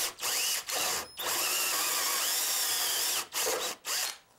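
Hand drill running a coarse-toothed hole saw into the end grain of a hardwood leg blank, a steady cutting grind. It is let off briefly several times, and the motor whines back up after each pause, before stopping near the end.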